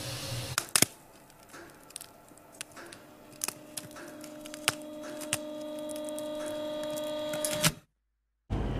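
Sauna stove stones crackling and ticking in scattered sharp cracks over a faint steady hum of a few held tones that slowly grows louder. Everything cuts off suddenly about a second before the end.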